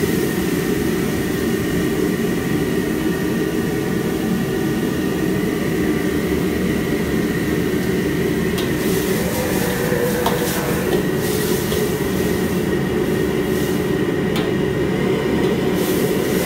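Commercial wok burner flame running with a loud, steady rushing noise under the wok, with a thin steady whine above it. A few light metal clinks, the ladle against the wok, come in the second half.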